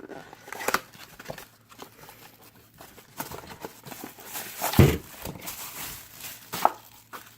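Unpacking a puzzle cube by hand: scattered plastic clicks and packaging rustling, with a single heavier thump a little before five seconds in.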